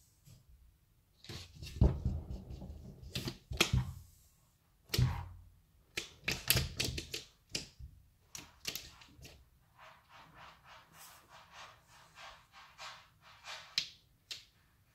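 Birman kitten playing roughly against a door frame on a wooden floor: heavy thumps and knocks in the first few seconds, then a quicker run of light claw clicks and scratching taps.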